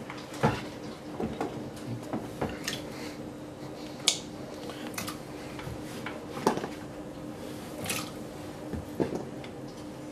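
Chunks of peeled root vegetable dropped one by one into a stainless steel pot of water, each landing with a short plop or knock against the pot, about ten in all at uneven intervals. A steady low hum runs underneath.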